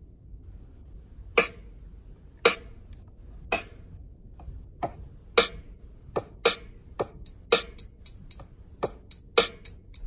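Sampled drum hits from a computer drum track: single sharp hits about once a second at first, then from about six seconds in a quicker pattern of several hits a second.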